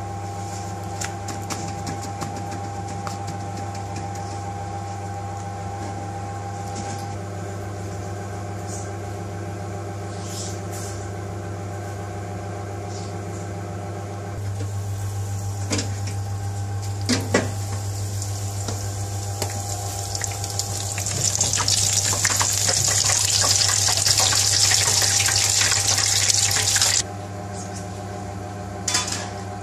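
A steady low electrical hum of kitchen equipment, with two sharp knocks about halfway through. Later a loud, even hiss with a fine crackle runs for about six seconds and cuts off suddenly near the end.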